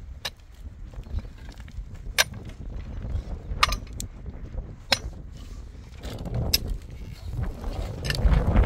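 Pickaxe striking stony ground, about five sharp hits spaced a second or so apart. A low rushing noise builds near the end.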